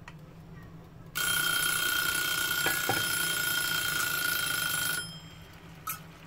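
Mechanical dial kitchen timer ringing its bell for about four seconds, starting about a second in and cutting off suddenly: the set cooking time is up. A short clink follows near the end as the lid comes off the pan.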